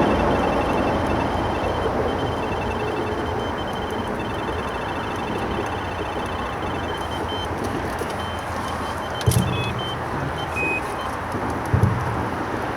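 Steady rush of road traffic from the A14 bridge beside the river, with two short low thumps in the later part.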